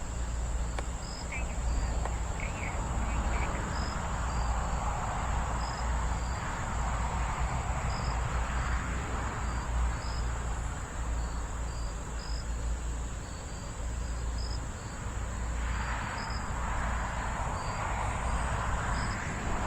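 Gusty wind rumbling on the microphone, with a steady high trill of crickets and short insect chirps repeating irregularly over it.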